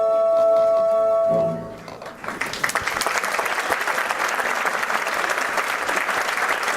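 The orchestra's held final chord ends about a second and a half in. An audience breaks into applause about two seconds in and keeps clapping steadily.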